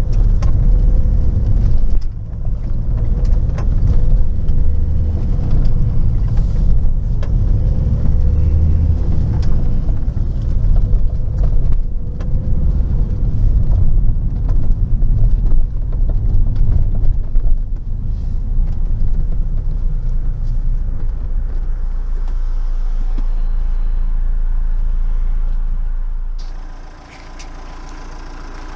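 Renault Megane 2 with its 1.9 dCi diesel running after the timing belt, tensioner and high-pressure pump were replaced, heard as a loud, uneven low rumble. It evens out, then drops to a quieter steady hum near the end.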